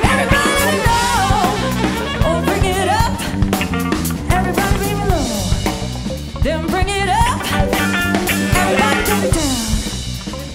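Live band playing a funk tune: saxophone over drum kit and electric bass, with singing.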